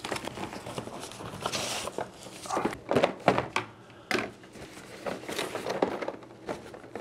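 Cardboard boxes being handled: rustling and scraping of the flaps and packing, with several light knocks as the product box is lifted out of the shipping carton and set down.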